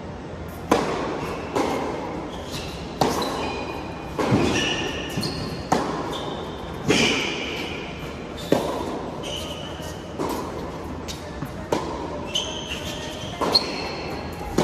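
A tennis rally on an indoor hard court: sharp pops of the racket striking the ball and of the ball bouncing, coming roughly every second and ringing in a large hall. The first pop, a serve, comes under a second in. Short high squeaks of shoes on the court come between the hits.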